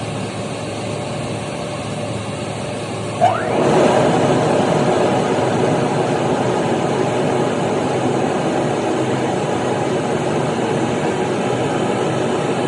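Boiler-room machinery, a burner and its blower, running with a steady noise. About three seconds in there is a sudden short rising squeal, and the running sound turns louder and holds there, as the burner steps into a higher firing stage.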